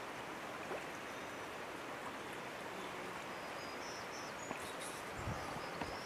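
Steady outdoor background hiss, with a few faint short high chirps and a soft low thump about five seconds in.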